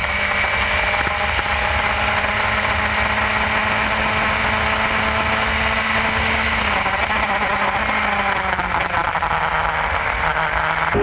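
Onboard sound of a Formula F (F1600) open-wheel race car's engine running hard at high revs, with wind rushing past the cockpit. About two-thirds of the way through the engine note falls as the car slows for a corner.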